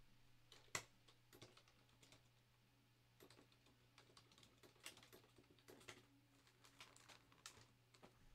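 Faint, irregular clicking of typing on a computer keyboard, a few keystrokes a second, over a faint steady low hum.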